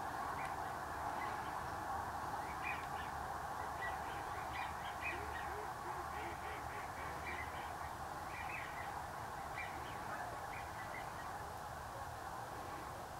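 A huge flock of snow geese calling: a continuous din of thousands of overlapping calls, with single higher-pitched yelps standing out throughout.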